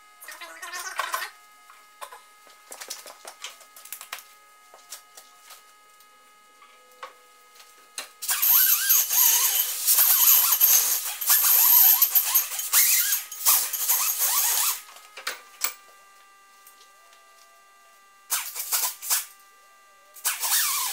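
Clicks and knocks of handling, then a hand-held grinder working steel about eight seconds in: several seconds of uneven grinding strokes with short breaks, and two brief bursts near the end. It is dressing small scrap-steel pieces to knock the sharp edges off.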